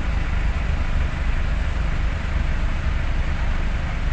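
Steady low rumble of road traffic and idling vehicles, with no sudden sounds.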